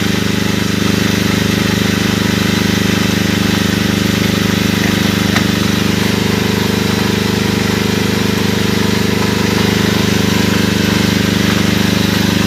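Agricultural drone's rotors running with a steady, loud hum while spreading fertilizer, growing a little louder near the end.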